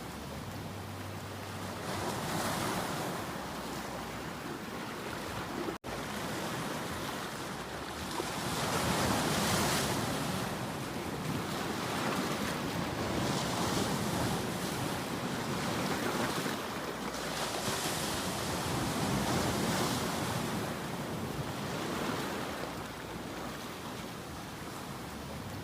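Sea waves breaking and washing on the shore, the surf swelling louder every few seconds and then easing back.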